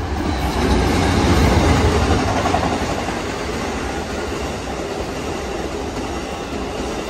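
Amtrak Coast Starlight passenger train passing at speed: the GE P42 diesel locomotives go by first, loudest about a second and a half in, then the double-deck Superliner cars roll past with steady wheel-on-rail noise.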